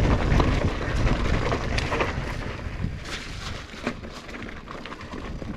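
Commencal Meta HT hardtail mountain bike rolling down a dirt trail: tyres crunching over gravel and the bike rattling with many small knocks, with wind buffeting the microphone. It gets quieter from about halfway through.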